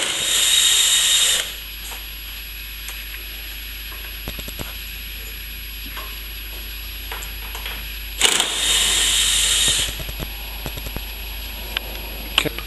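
Cordless driver running in two bursts of about a second and a half each, one at the start and one about eight seconds in, backing screws out of wooden shutter boards. Small clicks and knocks come between the bursts.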